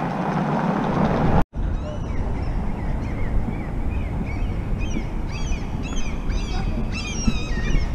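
Birds calling over and over in short, high, curving chirps, starting about three seconds in and coming several times a second, over a steady low street rumble. About a second and a half in, the sound cuts out for an instant.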